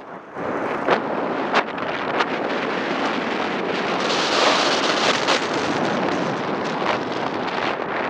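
Wind rushing over the microphone of a bike-mounted camera while riding fast, over the steady rolling noise of mountain-bike tyres on a gravel path. A few sharp clicks or knocks come through it.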